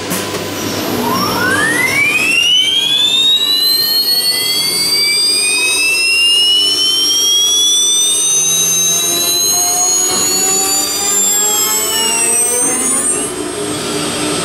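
CNC router's automatic-tool-change spindle spinning up: a high whine climbs steeply in pitch over the first couple of seconds, keeps rising slowly, then stops abruptly near the end. A steady machine hum runs underneath.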